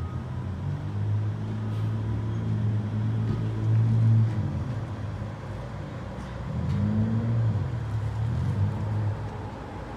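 A road vehicle's engine running, growing louder to a peak about four seconds in, then a second spell of engine sound that rises in pitch about six and a half seconds in and fades near the end.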